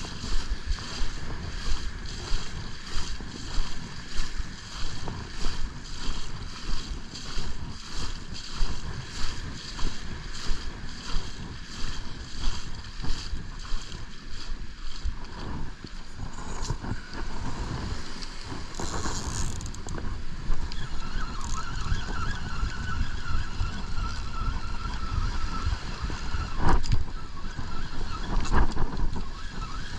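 Footsteps on wet beach sand at a steady walking pace, about one and a half steps a second, over surf and wind buffeting the microphone; the steps stop about halfway through. Near the end come a couple of knocks as the surf rod is taken in hand.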